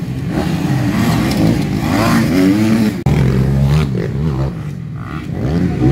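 Motocross dirt bikes revving on the track, several engines rising and falling in pitch together. There is an abrupt break about three seconds in.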